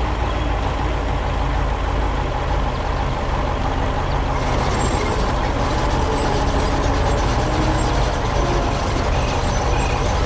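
Heavy construction machinery running steadily, a loud continuous engine rumble with mechanical clatter over it.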